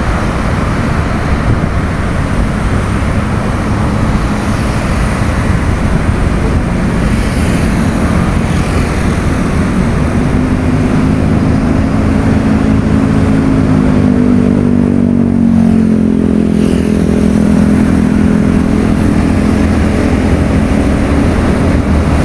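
Steady, loud road traffic noise. About ten seconds in, a pitched motor hum joins it and shifts up and down in pitch.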